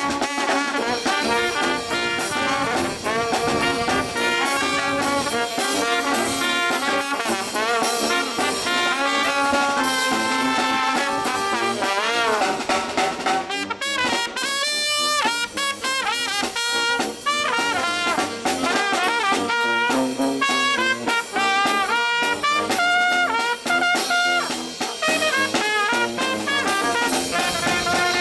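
Small brass band of trumpet, saxophone, tuba and snare drum playing a tune, with a long held chord about halfway through.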